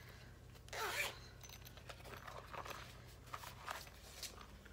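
Small toothbrush carrying case being opened and handled: a short scraping rustle about a second in, then light clicks and rustles as the booklet is taken out.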